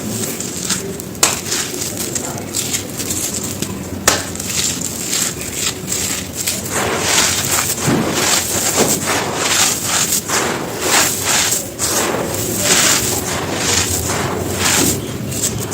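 Soft, dry stone-like chunks being crushed and crumbled: a dense, irregular run of crunching and crackling, with sharper snaps about a second in and again about four seconds in.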